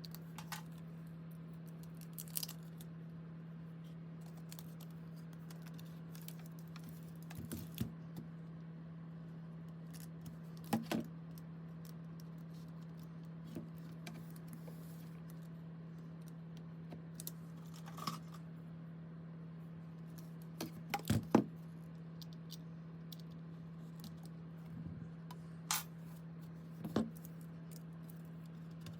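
Scattered light clicks and taps of small hard keyboard parts being handled during disassembly, with a louder cluster of clacks past the middle, over a steady low hum.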